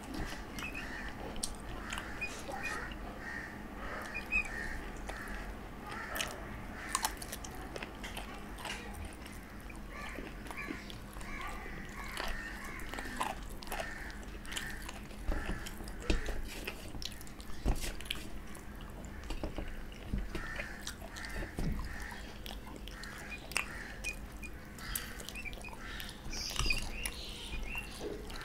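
A person chewing and smacking while eating chicken curry and rice by hand, with many short, irregular clicks of mouth and fingers against a steel plate.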